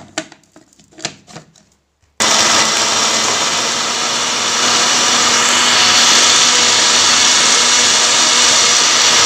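A few short clicks and knocks as the lid is fitted to a countertop blender jug. About two seconds in, the blender motor starts suddenly and runs loud and steady with a constant hum, pureeing orange pieces and sugar into juice.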